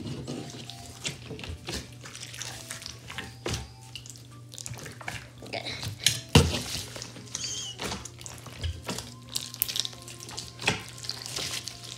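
Wet clicking and squelching pops of a large mass of glittery slime being kneaded and pressed by hand, irregular throughout, with one louder pop about six seconds in.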